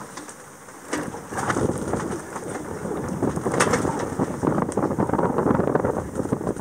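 Sailboat hull pushing slowly through a thick mat of floating sargassum seaweed: a dense rustling crackle with scattered clicks, which grows louder about a second in.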